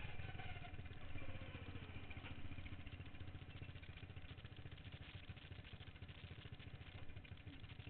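Modified racing lawn mower's small engine running with rapid, chattering firing pulses. Its pitch falls over the first couple of seconds as the revs drop, then it runs on at lower revs.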